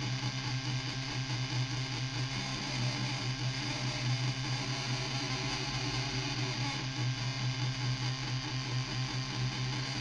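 Muscarin DIY analog drone/noise synthesizer playing: a steady low drone under a dense, noisy texture whose loudness flickers quickly.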